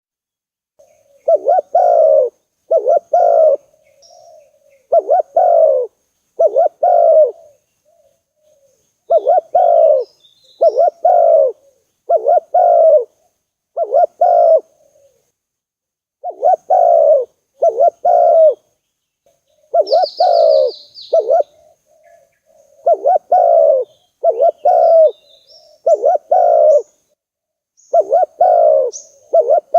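Spotted dove cooing: a steady series of low, loud coo phrases, one every second or two, with short pauses between groups. Small birds chirp faintly and high above it, with a quick high trill about two-thirds of the way through.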